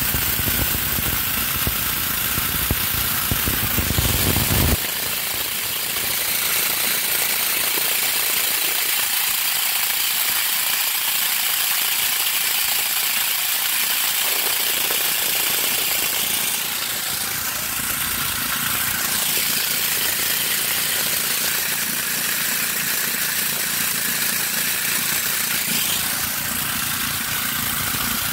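Homemade electric corn grinder running, cracking dried corn kernels into grits: a steady grinding noise, with a deeper rumble for the first five seconds or so that then drops away.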